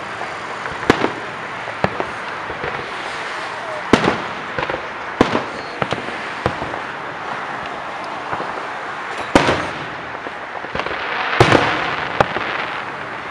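Aerial fireworks shells bursting: about nine sharp bangs at irregular intervals, a second or more apart.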